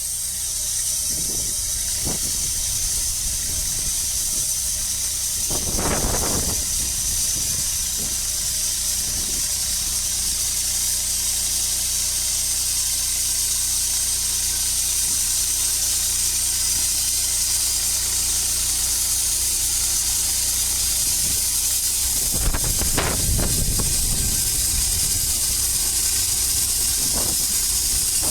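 Portable sawmill running and cutting through a dry spruce log: a steady high hiss of the blade in the wood over a low machine hum, with louder rough passages about six seconds in and again near the end.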